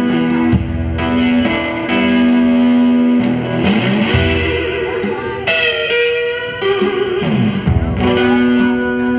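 Live blues played on a resonator guitar through an amplifier, with notes that glide up and down in pitch, backed by a drum kit keeping time.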